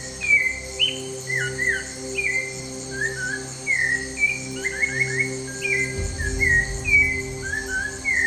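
Birds singing and chirping in quick, short, mostly downward-sliding phrases, over a soft steady low drone of Tibetan-style tones.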